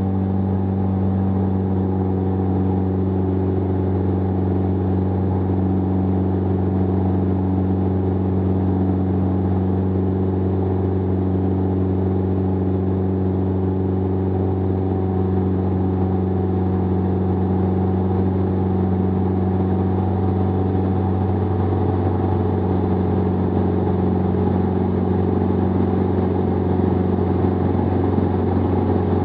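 Jabiru 2.2-litre four-cylinder air-cooled aircraft engine and propeller running steadily in flight, a constant even drone.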